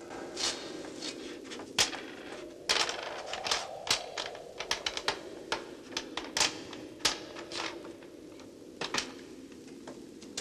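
Footsteps and small knocks on a metal spiral staircase: a run of uneven sharp clicks, several a second, over a steady low hum.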